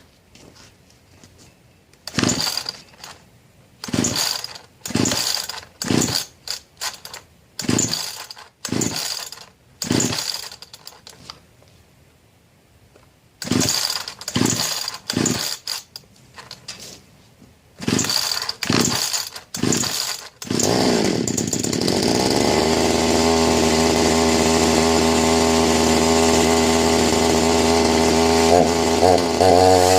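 Chinese clone two-stroke chainsaw being pull-started on choke: a long series of short rasping pulls on the starter cord, with a pause partway through. About twenty seconds in the engine catches and keeps running steadily, before its carburettor is adjusted.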